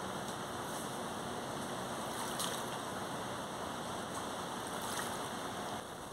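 Steady rush of river water flowing past, with a couple of faint ticks.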